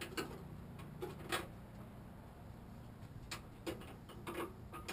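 Scattered light clicks and taps from a rear bumper cover being handled and held against the car while it is lined up, over a low steady hum.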